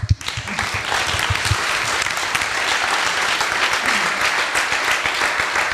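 Audience applause: many people clapping, breaking out at once and holding steady.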